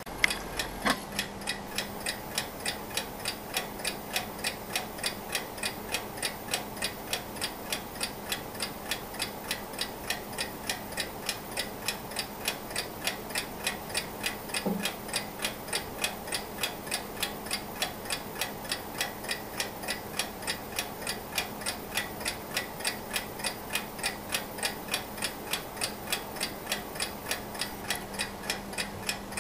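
Antique German Junghans mechanical alarm clock ticking steadily, with sharp, even ticks about three a second. A faint steady hum runs underneath from about a second in.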